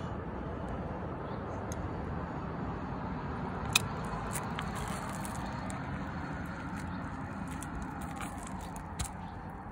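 Steady low outdoor background rumble, with one sharp click a little under four seconds in and a softer knock near the end.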